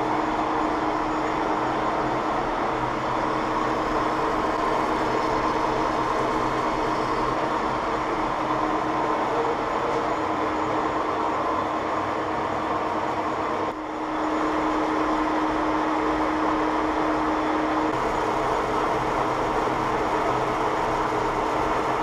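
Large metal lathe running, facing an aluminium block in a four-jaw chuck with a polycrystalline diamond insert: a steady machine hum with held tones and the cutting noise of the aluminium. There is a brief drop in level about fourteen seconds in.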